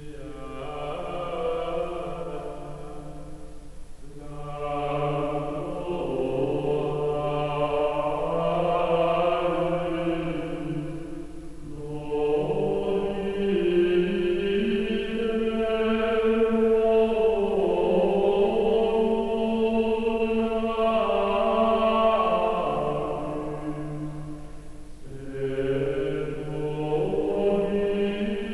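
Soundtrack music: a choir singing a slow chant in long held notes, in phrases with short breaks about four, twelve and twenty-five seconds in.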